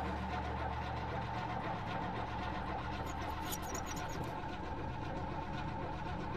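Starter motor steadily cranking a fuel-injected Cadillac V8 that does not fire.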